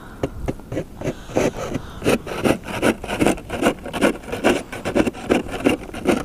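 Footsteps crunching through deep fresh snow at a steady walking pace, about two and a half steps a second, starting about a second in and getting louder.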